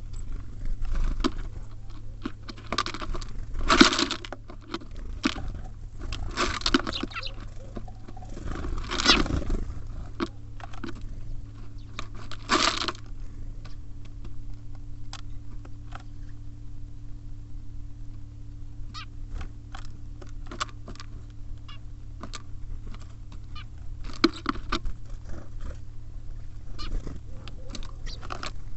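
Small birds (tits and sparrows) at a bird feeder: irregular sharp clicks and taps of beaks and feet on the feeder and seed, with a few louder brief flurries of noise in the first half and again near the end.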